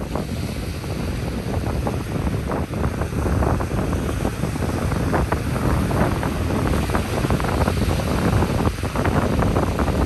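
Ocean surf washing onto a beach, with wind buffeting the microphone and adding a low rumble.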